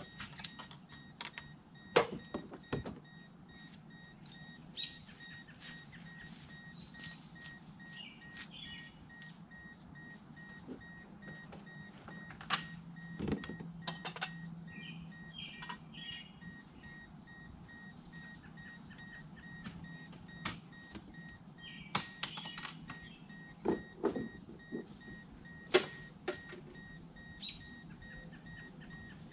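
Car warning chime beeping steadily at an even, rapid pace while the doors stand open, with scattered knocks and clicks from handling at the car.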